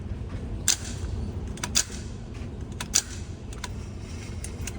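A few sharp metallic clicks, three of them clearly louder and about a second apart, over a steady low rumble: mechanical handling sounds, typical of working the action of a .22 bolt-action rifle, not gunshots.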